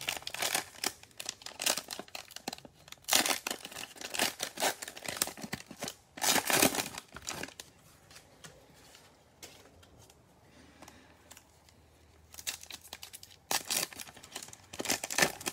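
Foil cello trading-card pack wrappers crinkling and tearing open in gloved hands, in bursts with a lull of a few seconds past the middle before more tearing near the end.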